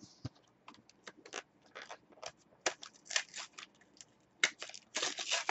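Select AFL Footy Stars trading-card starter pack being opened by hand: an irregular run of short crackles and scratches of plastic and cardboard packaging, thickest near the end.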